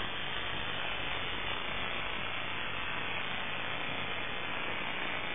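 Steady buzzing hiss of an electric FPV plane in flight, heard over its onboard audio feed: motor, propeller and airflow noise with no change in pitch.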